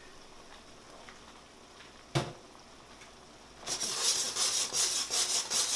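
One sharp knock about two seconds in, then loud crackling sizzle from a pan of tomato sauce on the hot burner with pasta water just added to thicken it, cutting off abruptly at the end.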